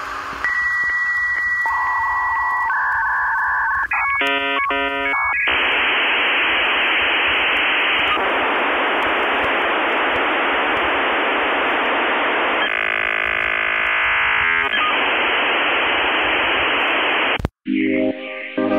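Electronic background music: a few held synth tones and a short stepped run of notes, then a long stretch of radio-static-like noise that cuts out sharply near the end before pitched synth notes return.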